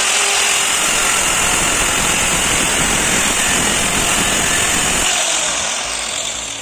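Handheld electric marble cutter sawing through a ceramic floor tile: a loud, steady whine with a rough grinding underneath. About five seconds in the grinding stops as the cut finishes, and the motor runs down.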